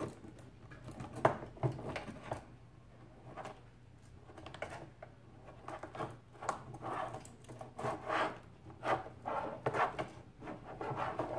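Handling noise from a 3D-printed rock-crawler chassis with coil-over shocks: light clicks and knocks as it is moved and flexed by hand on a wooden desk, turning into a quick run of rattling taps over the last few seconds.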